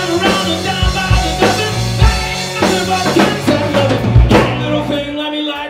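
Live rock band playing: drum kit with bass-drum and snare hits under electric guitar. About five seconds in the drums and bass drop out, leaving a held chord.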